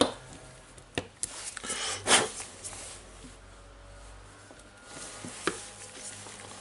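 Handling noise from desoldering a wire off a drill motor. A sharp click at the start and another about a second in, a brief loud scrape about two seconds in, and a lighter click near the end, as the soldering iron and the plastic drill housing are moved and knocked about.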